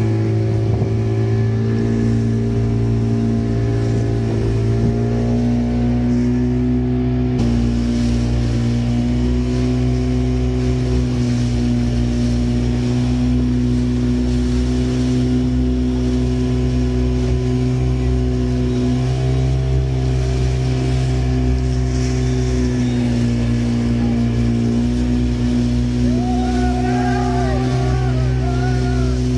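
Motorboat engine running steadily with a steady drone, its pitch shifting a few times as the throttle changes. A few short wavering higher sounds come in near the end.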